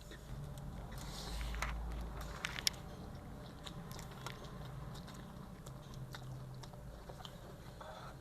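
Close-up chewing of spicy instant noodles with greens, with scattered small crunchy clicks and one sharper click a little under three seconds in.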